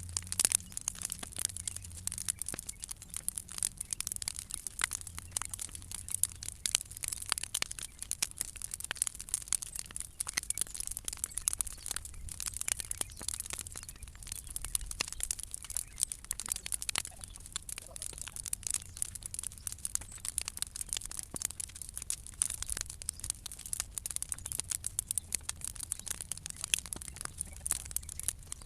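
Large bonfire of old decking timber and cut branches burning, crackling and popping continuously over a steady hiss.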